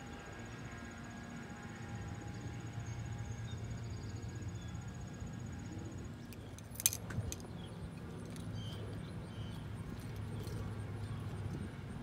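Quiet outdoor background with a low steady hum, broken about seven seconds in by a brief sharp clatter and a few lighter clicks.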